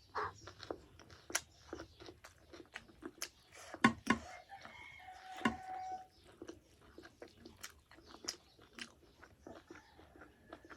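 Close-up mouth sounds of eating a meal of rice, buffalo-meat gravy and pickles: chewing and crunching with many soft, wet clicks. A couple of louder knocks come about four seconds in.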